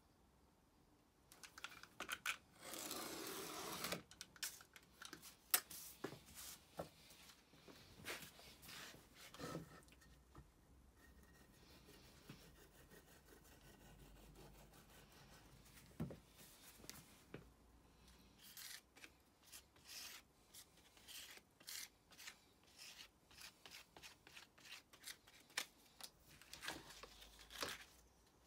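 Faint handling sounds of thin wood veneer strips and a glue bottle on a workbench: scattered light taps, clicks and rustles. A noisy stretch of about a second and a half comes near the start.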